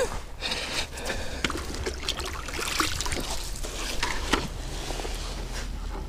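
Shallow creek water splashing and sloshing as a plastic fish-measuring board is dipped and moved in it, with scattered light knocks from handling.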